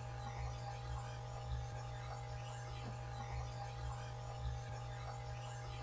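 A noisy audio recording playing back: a steady electrical hum and hiss with a few faint, brief swells rising out of it. It is presented as an EVP in which a voice says "it was amazing when you wanted to be more" three times.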